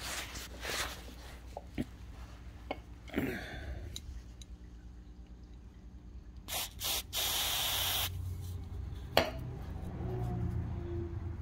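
A pressurised spray hissing on carburetor parts: two brief puffs, then a spray lasting about a second, about seven seconds in. Scattered clicks and knocks of small parts being handled surround it, the sharpest just after nine seconds.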